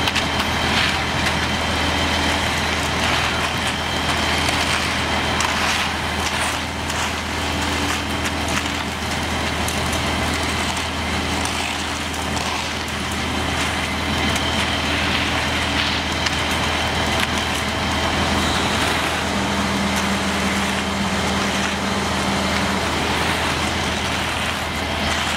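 Concrete pump truck's diesel engine running steadily under load, a continuous low drone with a faint high whine over it.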